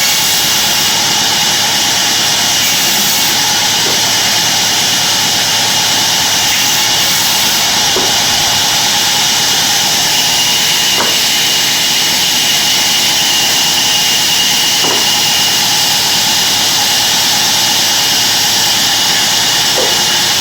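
Sawmill band saw running steadily: a loud, unbroken hiss with a thin, steady high whine through it.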